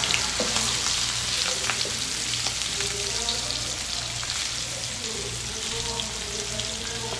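Rohu fish pieces sizzling steadily as they shallow-fry in hot oil in a pan, with a few light clicks of a spatula against the fish and pan.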